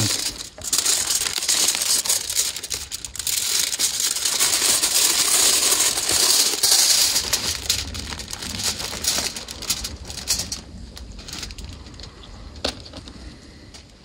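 Aluminium foil and a plastic zip-top bag crinkling and rustling as the foil is unfolded and the bag of vegetables is opened and emptied onto it. The crinkling dies down after about ten seconds.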